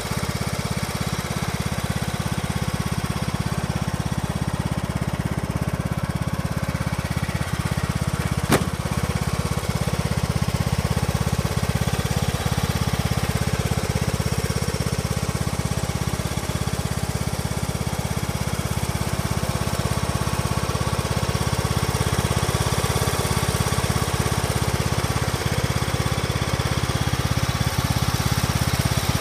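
John Deere LA125 riding lawn mower's engine running steadily at idle, with one sharp click about a third of the way in.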